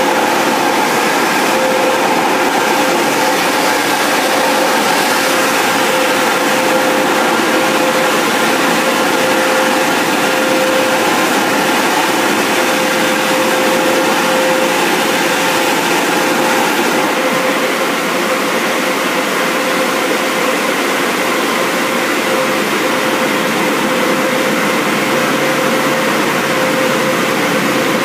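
Mark VII car wash air dryer blowing: a steady, loud rush of air with a constant fan whine.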